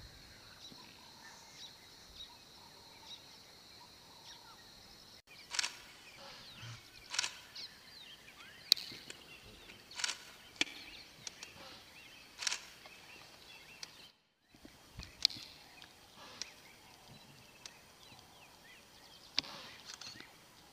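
Outdoor bush sound with wild animal calls. A steady high insect drone for the first five seconds, then, after a break, short sharp calls every second or two over faint chirping, with a brief silence about two-thirds of the way through.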